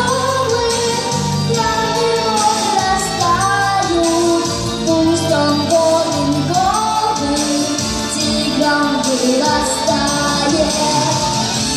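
Lullaby song: a woman singing a melody over instrumental backing.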